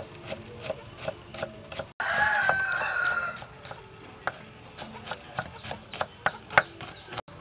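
A kitchen knife slicing shallots on a wooden chopping block: sharp taps on the board about three times a second. About two seconds in, a loud, drawn-out animal call lasting just over a second is the loudest sound.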